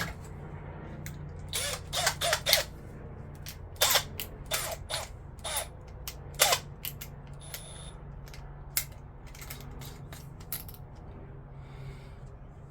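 Irregular sharp metallic clicks and clacks, about a dozen, mostly in the first seven seconds, as a tool is handled and adjusted, over a steady low hum.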